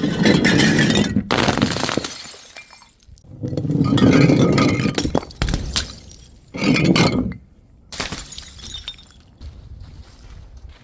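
Glass bottles shattering: three loud breaks, each trailing off in the clatter of shards, followed by lighter clinks of broken glass.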